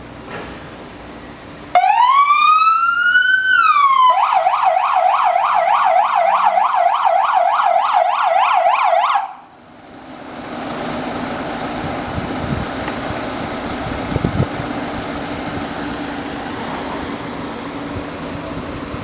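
AS8910 200 W electronic siren sounding: about two seconds in it starts with a rising wail, drops back near four seconds, then switches to a fast yelp of about four sweeps a second, and cuts off suddenly after about nine seconds. A steady low hum and noise follow.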